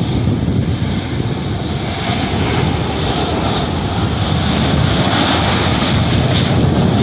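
Jet engines of a Boeing 737 airliner running as it rolls down the runway after landing: a steady, dense rumble and roar, its higher hiss growing stronger from about two seconds in.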